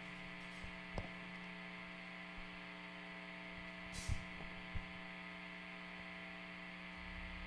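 Steady electrical hum from the stage's live amplifiers and PA, a buzz with many overtones. A few faint knocks come through, with a short hiss about four seconds in.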